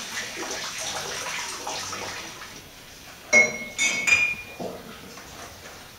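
Running water for the first couple of seconds, then a few bright clinks with a short ring a little past halfway, hard objects knocking together.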